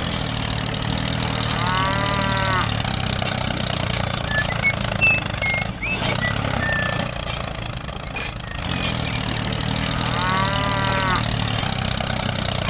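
Miniature tractor's engine sound: a low, steady engine hum as it tows its trolleys. Two brief arching calls come about two seconds in and again near ten seconds, with a few faint short chirps in between.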